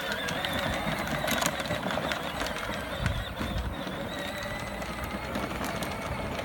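Electric motor of a child's battery-powered ride-on toy utility vehicle whining steadily as it drives over grass, with scattered clicks.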